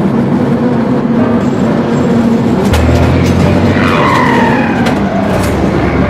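Added street-traffic ambience: a steady rumble of old motor cars. A deeper engine drone comes in about halfway through, and a falling whine follows near the end as a vehicle goes by.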